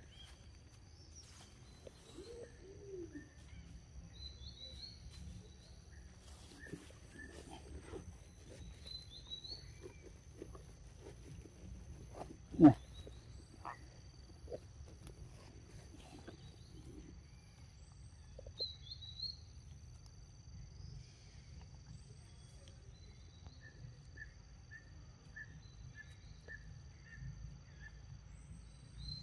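Faint outdoor ambience: a steady high insect drone, with birds calling in short chirps every few seconds and a quick run of evenly spaced pips near the end. About twelve seconds in comes one short, loud sound that drops quickly in pitch.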